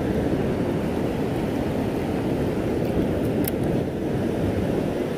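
Steady rushing roar of the New River's rapids and Sandstone Falls, even and unbroken.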